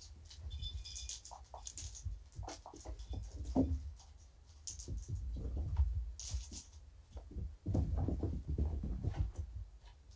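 Irregular rustling, scratching and soft thumps, with several louder bunches of thumps: kittens scampering and playing among toys on a blanket.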